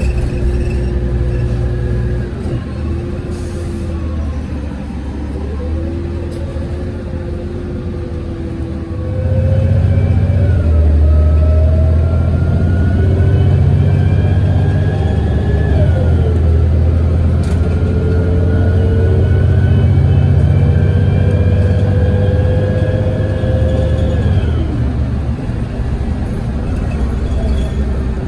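City bus engine and transmission. It runs low at first; about nine seconds in it gets louder as the bus pulls away, and its whine climbs in pitch, dropping back at two gear changes.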